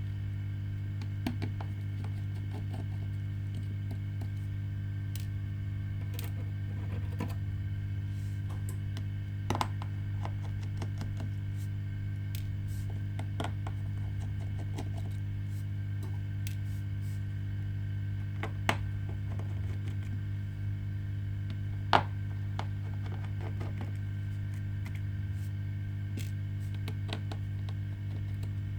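Small tools clicking and tapping against a smartphone being taken apart: scattered sharp clicks, a few louder ones, over a steady low electrical hum.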